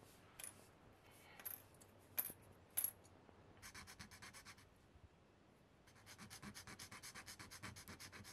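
A hand file rasping quickly back and forth over a small piece of white styrene plastic, about eight strokes a second, in two runs. A few sharp clicks come before it.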